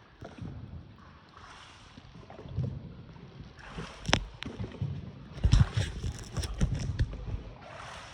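Paddles dipping and swishing through water as a small boat is rowed, in repeated strokes, with low thuds and a run of sharp knocks in the second half.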